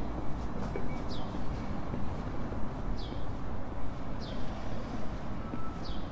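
Footsteps of a person walking at a steady pace on pavement, about two steps a second. A short, high chirp that falls in pitch repeats every second and a half or so.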